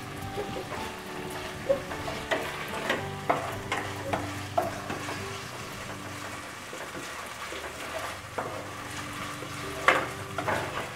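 Boneless chicken pieces frying in oil in a nonstick pot, sizzling steadily, while a plastic spoon stirs them. The spoon scrapes and clacks against the pot a few times from about two seconds in, and again more sharply near the end.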